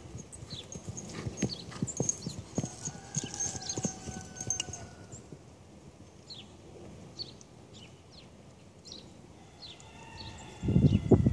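Hoofbeats of a barrel horse being ridden over dirt and grass, turning much louder and denser near the end as the horse comes close.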